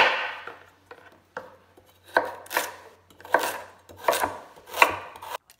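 Chef's knife slicing carrots into rounds on a bamboo cutting board: about eight crisp knocks of the blade through the carrot onto the board, unevenly spaced, the first the loudest.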